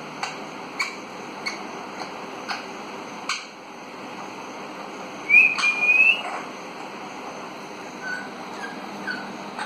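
Young Alexandrine parakeet whistling: one loud rising whistle about five seconds in, then a few short soft chirps near the end. Sharp single clicks come about every half second over the first few seconds, over a steady hiss.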